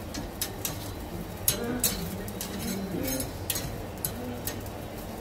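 Metal tongs clicking and scraping against a grill grate as meatballs are turned, a sharp click every second or so, over faint background voices.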